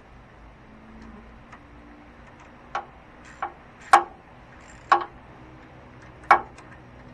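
Five sharp knocks, unevenly spaced about half a second to a second and a half apart, starting a little before halfway through; the later three are the loudest.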